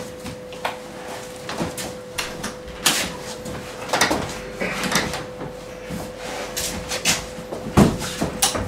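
Handling noise as a person gets ready to leave: rustling of a jacket and shoulder bag, scattered knocks and clicks as a hard guitar case is lifted and moved, and a louder thump near the end, followed by a couple of sharp clicks at the light switch. A steady faint hum runs underneath.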